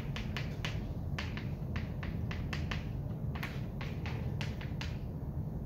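Chalk writing on a blackboard: an irregular run of short sharp taps and strokes, about three or four a second, over a steady low room hum.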